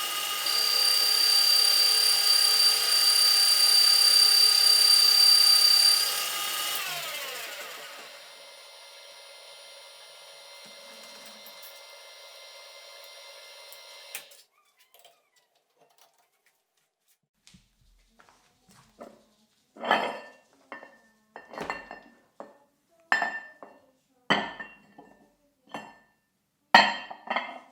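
Old metal lathe running with a steady high whine, then switched off about six seconds in and spinning down, its pitch falling until it stops around the halfway point. A series of sharp knocks follows, each with a brief ringing tone.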